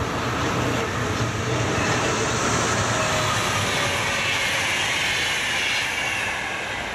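VR Sr1 electric locomotive and double-deck InterCity coaches passing at speed: a steady rush of wheels on rail that builds in the first second and eases off about six seconds in as the last coach goes by.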